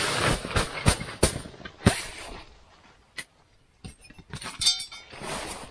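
Handling of a sheet-metal tent stove and its chimney pipe: rustling with several sharp knocks in the first two seconds, then a short metallic clink and rattle about four and a half seconds in.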